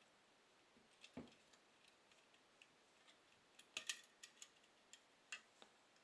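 Faint clicks and small plastic snaps of a carbon brush holder being unclipped and lifted out of a Bosch washing-machine motor's housing: one click about a second in, a quick cluster around four seconds, and a couple more near the end, with near silence between.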